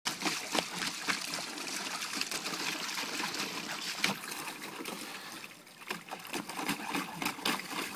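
Pool water splashing and sloshing as a Great Pyrenees dog plays in it, with frequent short splashes over a steady trickling; it eases off briefly a little past halfway, then the splashing picks up again.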